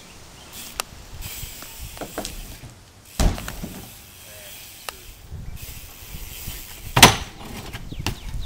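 BMX bike ridden on concrete, with two sharp knocks as its wheels come down hard on the pavement, about three seconds in and again, louder, about seven seconds in. Lighter clicks and rattles from the bike come in between.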